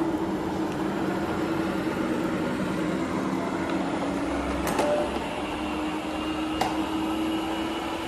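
Robot vacuum cleaner running, its suction motor giving a steady hum with a held tone, turned up to a higher speed for carpet. Two faint light clicks come about halfway through.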